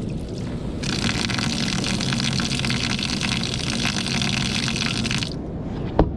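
Water running from a tap nozzle, turned on about a second in and shut off suddenly near the end, followed by a single sharp click.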